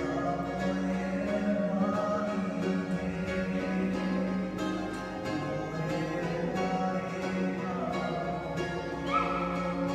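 Music played on plucked string instruments, with sustained notes over a strummed accompaniment and a short rising note near the end.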